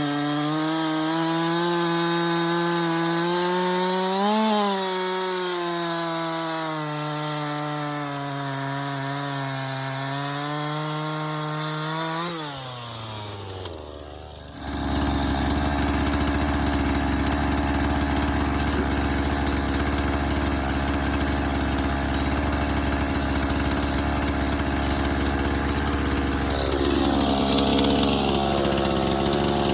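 Two-stroke chainsaw running at high revs and cutting wood, its pitch sagging and recovering as the chain bites. About 12 seconds in the throttle is let off and the revs fall away. From about 15 seconds a steady low engine idle takes over.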